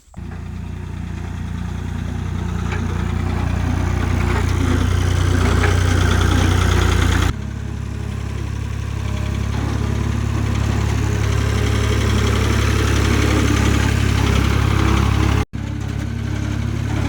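An engine idling steadily with a deep, even hum. The level drops slightly about seven seconds in, and the sound cuts out for an instant near the end.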